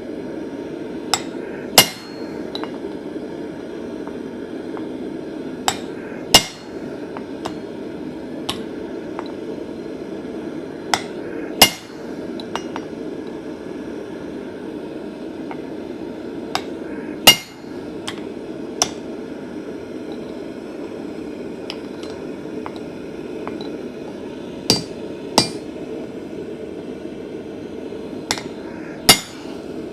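Hammer striking steel on an anvil during forging: single blows and close pairs, a few seconds apart, each a sharp ringing clang, over a steady rushing noise.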